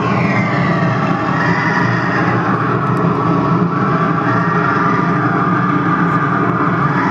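Storm sound effect: a steady, loud roar of howling wind for the tornado.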